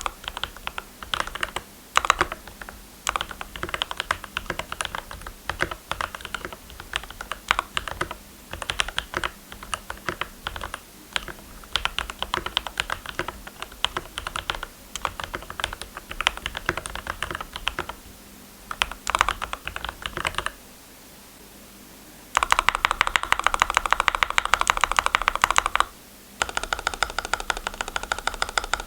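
Custom GMMK Pro keyboard with lubed Gateron Milky Yellow linear switches and Akko PBT Cherry-profile keycaps being typed on. Uneven typing for about twenty seconds, a short pause, then two runs of very fast, dense keystrokes near the end.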